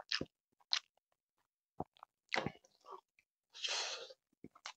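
Close-miked chewing of grilled chicken: a string of short wet smacks and clicks from the mouth, with one short noisy breath about three and a half seconds in.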